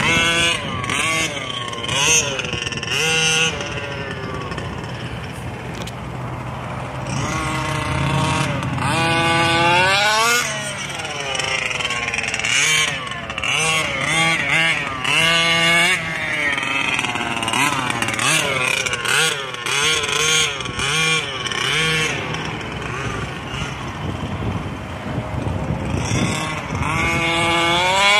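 Losi 5B 1/5-scale gas RC buggy's Scott Finlay 34cc reed-case two-stroke engine being driven hard, revving up and dropping back again and again, its pitch climbing and falling with each burst of throttle.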